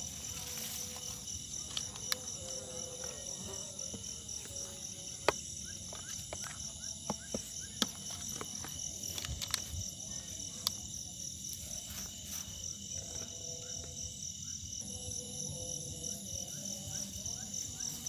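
Night chorus of crickets, a steady high trill pulsing evenly. Several sharp clicks and snaps sound over it, the loudest about five and eight seconds in.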